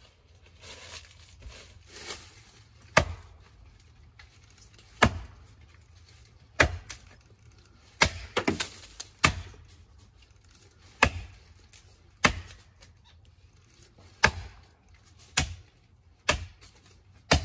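Heavy axe chopping into a standing tree trunk about 22 inches across, deepening the felling notch. About a dozen sharp, solid strikes come at one every second or two.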